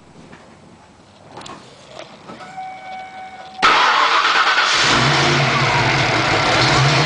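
Built Ford 5.0 (302) V8 in a 1993 Mustang cranked and started about three and a half seconds in. It catches within about a second and settles into a steady idle. The rocker arms have just been re-adjusted after a loose rocker was fixed, and the uploader calls the valvetrain noise fixed.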